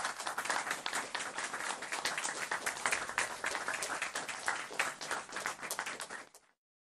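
A roomful of people applauding, a dense steady patter of hand claps that cuts off suddenly near the end.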